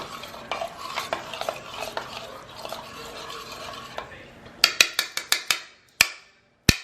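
Stirring a liquid mixture of coconut milk, eggs and sriracha in a bowl: a steady scraping swish with small clicks. Near the end, a series of sharp clinks from the utensil striking the bowl, several quickly and then a few spaced out.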